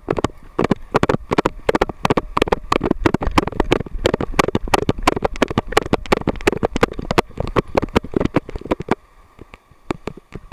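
Rapid, irregular knocking and rattling of a camera strapped to a running dog, with wind rumbling on the microphone; it dies down about nine seconds in.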